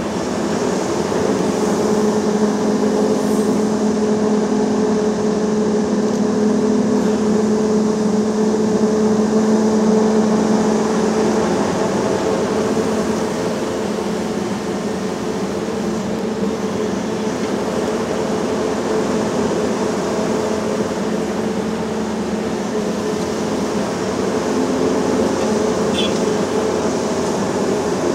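Volvo EC380E tracked excavator's diesel engine running steadily at working revs while it loads a tipper truck, a constant engine drone with a steady hum. The hum eases a little about halfway through and builds again near the end.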